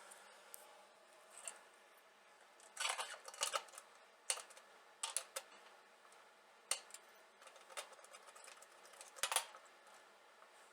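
Irregular light clicks and knocks, scattered and uneven, with small clusters of louder ones about a quarter of the way in and again near the end.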